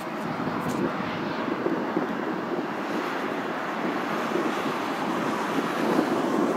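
Airbus A321's two CFM56-5B turbofan engines running at low thrust as the jet taxis: a steady jet-engine noise that grows slightly louder near the end.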